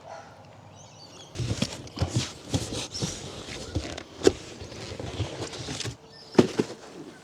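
Scuffing, rustling and knocking as a heavy boxed trailer jack is handled and lifted onto the back of a trailer, with a sharp knock about four seconds in and another near the end.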